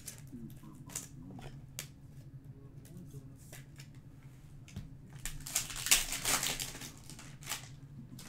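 Trading cards and a foil card-pack wrapper being handled: scattered light clicks and rustles, with a louder crinkling rip a little past halfway as the foil pack is torn open. A steady low hum runs underneath.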